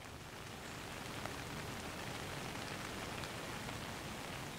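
Steady rain: an even hiss of falling rain with scattered small drop ticks.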